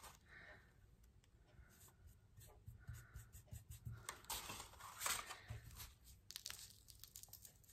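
Faint rustling and scratching of a rolled-paper funnel as homemade snow is tipped through it into a small hole in a glass block, with light clicks and hands rubbing on the block's hard top.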